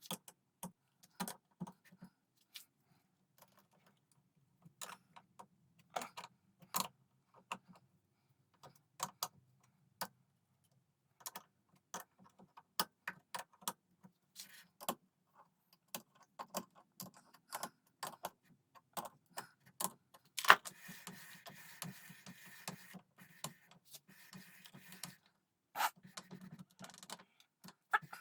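Workshop handling noise: irregular clicks and knocks of small hard parts and tools being picked up and set down on a workbench. A louder knock about twenty seconds in is followed by a few seconds of steady scraping noise.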